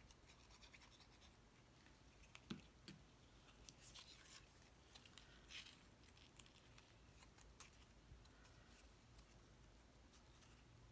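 Near silence with faint scratching and rustling as cardstock paper pieces are handled and pressed together, plus a few small taps.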